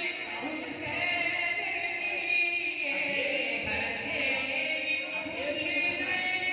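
Amplified male voice singing a naat through a microphone and PA loudspeaker, in long, drawn-out wavering notes with slow slides in pitch.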